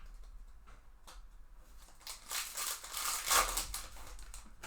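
Foil wrapper of a trading-card pack crinkling and rustling as it is torn open and the cards are handled. It is a few light clicks at first, then a denser run of crinkling about two seconds in.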